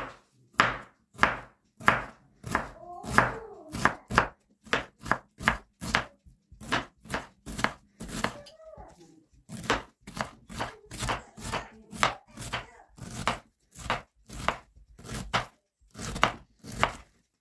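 Chef's knife slicing red cabbage into thin shreds on a bamboo cutting board: a steady run of sharp cuts, each ending in a knock of the blade on the board, about two a second.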